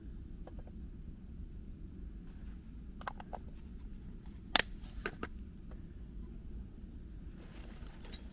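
A steady low rumble with two faint high chirps, broken by a few sharp clicks and knocks. The loudest is a single sharp knock about halfway through, with a short cluster of smaller clicks just after it.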